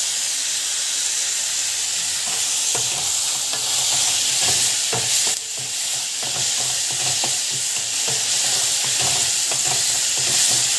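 Chopped onions and tomatoes frying with a steady sizzle in a metal pan, while a wooden spatula stirs them, scraping and knocking against the pan. The spatula strokes come thick and fast from about two seconds in.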